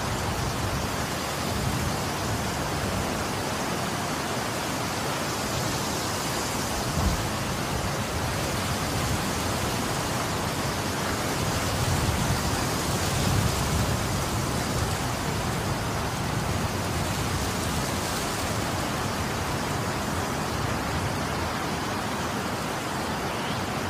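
Wind rushing over the microphone: a steady hiss with low buffeting that swells around the middle, and a single brief knock about seven seconds in.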